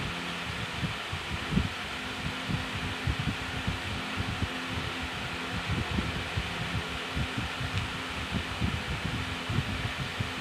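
Steady whirring hum with a faint low tone, broken by frequent soft low bumps.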